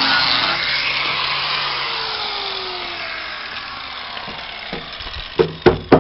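Handheld electric angle grinder winding down, its whir fading and falling in pitch over a few seconds. Near the end come four sharp knocks in quick succession.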